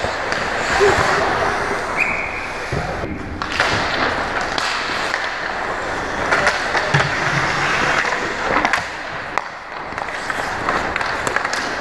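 Hockey skate blades scraping and carving on the ice close to the net, with many sharp clacks of sticks and puck.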